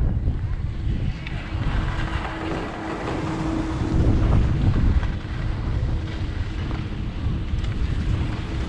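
Skis sliding and scraping over groomed snow while wind buffets the camera's microphone, with a steady hum underneath.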